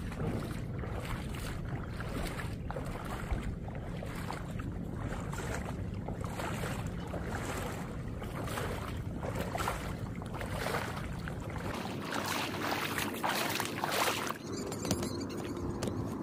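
Footsteps wading through shallow water, each stride sloshing and splashing in a steady walking rhythm, over wind rumbling on the microphone. The steps die away near the end.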